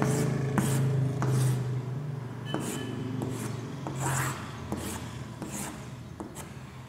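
Chalk scraping and tapping on a blackboard as the lines of a grid are drawn, in a series of short strokes with a few sharp taps. A steady low hum runs under it and fades out about four seconds in.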